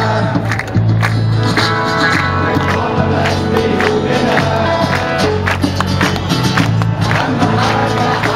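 Loud live music over a sound system: an acoustic guitar and a steady beat, with a large crowd singing and clapping along.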